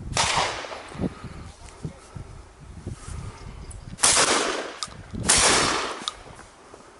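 Three shotgun shots: one at the start, then two more close together about four seconds in, the second about a second and a half after the first, each trailing off in a long echo.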